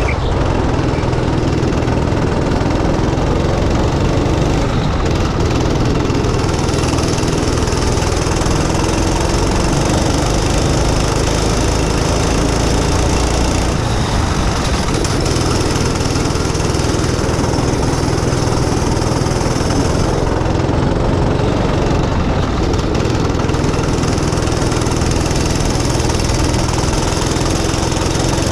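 Rental go-kart's small engine running at racing speed, its pitch rising and falling through the corners, heard from a helmet-mounted camera with wind rushing over it.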